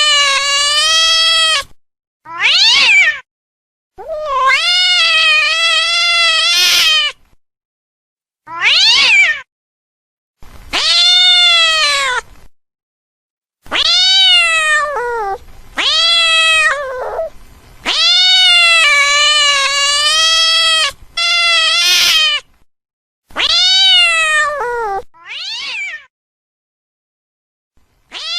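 An angry cat meowing in a string of about eleven drawn-out yowls, some long and some short, each rising and then falling in pitch, with silent gaps between them.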